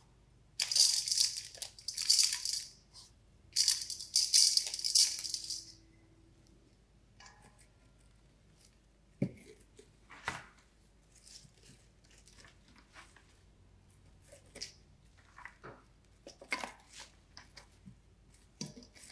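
Dry granules spilling out in two bursts of a few seconds each, with a hissy, rattling patter, followed by scattered light clicks and short handling rustles.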